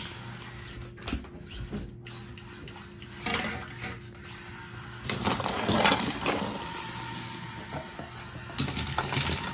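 Small electric motor and geartrain of a 1:24 scale FCX24 Bigfoot RC monster truck whining as it drives on a hardwood floor, surging louder with the throttle about three seconds in, around five to six seconds in and near the end.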